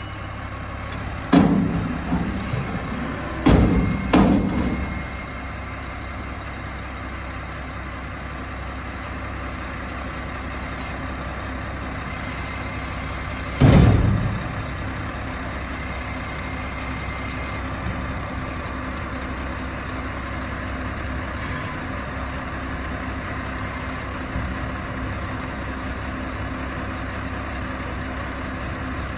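Heil front-loader garbage truck running as its forks empty a dumpster into the hopper. There are three loud metal bangs a few seconds in as the upturned container is knocked out, and another heavy bang about 14 seconds in as the container comes down. Otherwise the engine and hydraulics run steadily.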